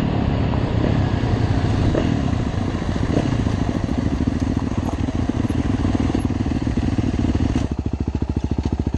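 Dirt bike engines running close up as the bikes roll to a stop. About three-quarters of the way in, the sound settles into an even, pulsing idle.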